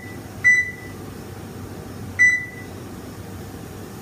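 Electric range's control panel beeping as the timer keys are pressed: two short, high beeps, about half a second in and about two seconds in.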